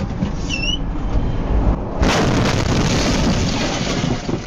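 Truck running down the road, then about two seconds in a sudden loud crash as the semi truck's windshield is struck and shatters, followed by about two seconds of noisy clattering.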